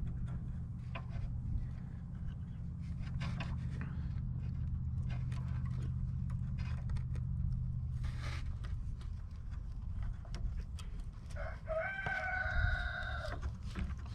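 A rooster crowing once near the end, one long call of about two seconds, over scattered light clicks and a low steady hum that fades out partway through.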